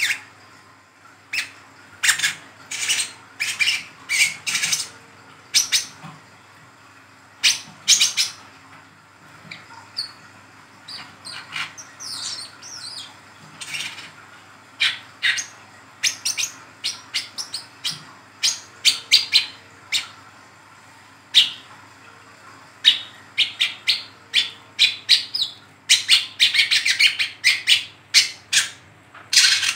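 Young brown-throated sunbird giving short, sharp chirps in quick runs throughout. It breaks into a dense burst of chattering near the end. This is the 'ngeriwik' chatter used as a lure call for the species.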